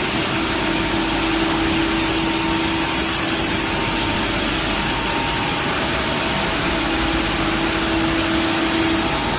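Pulp-moulding production line machinery running: electric motors, gear reducers and slurry pumps making a loud, steady hum with a low droning tone, mixed with wet pulp slurry pouring off a screen into a tank.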